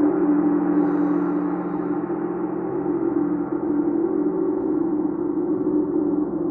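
Chau gong ringing on in a steady, deep hum, its low tone and many partials holding with no fresh strike.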